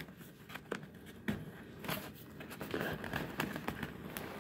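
Cardboard shipping box being handled and worked open by hand: scattered light knocks, taps and scrapes of cardboard at irregular moments.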